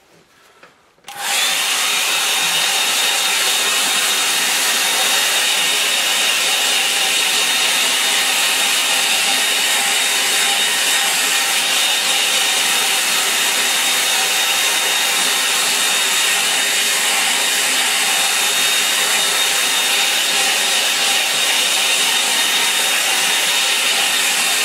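Hair dryer switched on about a second in and then running steadily and loudly: a rush of air with a thin high whine over it.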